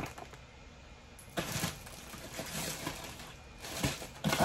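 Quiet handling noises from small haul packages being picked up and moved: a short rustle about a second and a half in and a few faint knocks and rustles after it.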